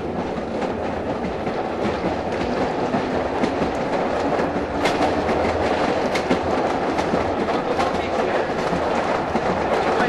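Pacific Electric 'Hollywood' interurban car running along the line, heard from inside just behind the motorman. A steady rumble of the moving car, with wheels clicking over rail joints and a cluster of sharper clicks about halfway through.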